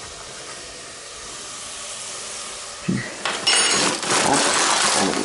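Onions and carrots frying in oil in a pot, a soft steady sizzle. About three seconds in comes a knock, then louder hissing with a brief metallic clink.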